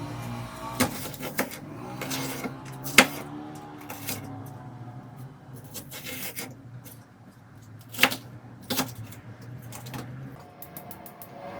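Kitchen prep noises: several sharp knocks and clacks on a wooden surface, the loudest about three and eight seconds in, over a low steady hum that stops near the end.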